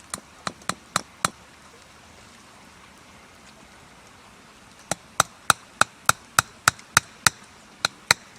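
A tool striking wood in sharp, even blows: five quick strikes, a pause of about three and a half seconds, then about eleven more at roughly three a second.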